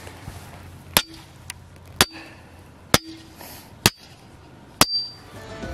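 Steel T-post being pounded into the ground: five sharp metallic clanks about a second apart, each ringing briefly.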